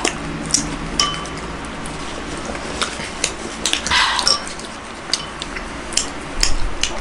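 A metal spoon clinking against a ceramic soup bowl and other tableware during a meal: scattered light, short clinks and taps.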